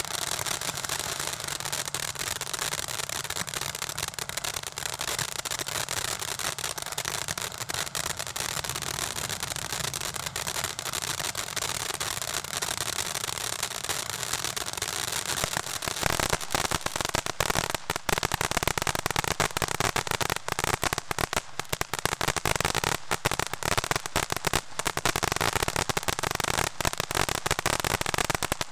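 Snow Cone ground fountain firework spraying sparks with a steady hiss and crackle. About sixteen seconds in it grows louder, with dense, rapid crackling pops.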